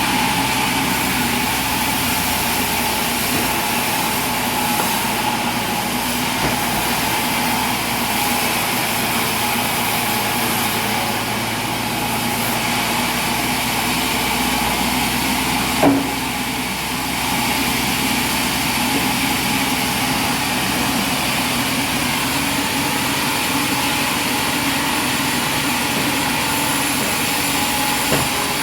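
Sawmill machinery running with a steady hum and a held whine, and one sharp knock about halfway through.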